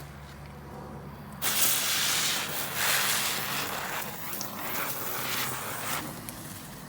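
A tiny F1 ground spinner firework hissing as it spins, catching suddenly about a second and a half in, its hiss rising and falling, then dying away about a second before the end.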